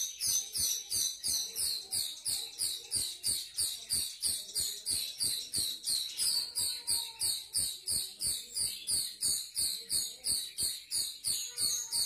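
Grosbeak starling (rio-rio) calling: a fast, steady string of short, high, sharp chirps at about four a second, repeating without a break.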